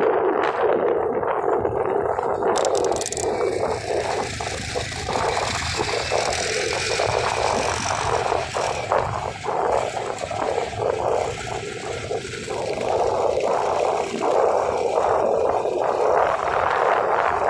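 Vehicle in motion: steady road and engine noise with frequent small rattles and knocks.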